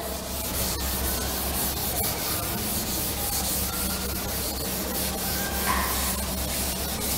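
Chalkboard duster rubbing over a chalkboard, wiping off chalk writing in continuous scrubbing strokes.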